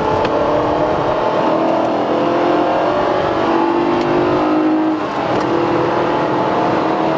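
Ferrari engine, heard from inside the cabin, pulling hard and rising in pitch as the car accelerates out of a chicane, with a short drop about five seconds in as it shifts up, then climbing again.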